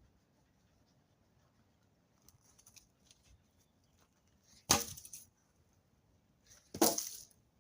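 Two sharp wooden cracks about two seconds apart, like firewood being chopped or snapped, with faint small snaps and rustles before them.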